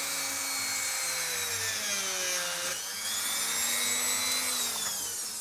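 Handheld rotary tool spinning a small drill bit, boring hook-eye holes into a painted wooden lure body. Its whine is steady, dips in pitch and climbs again about two and a half seconds in, then fades near the end.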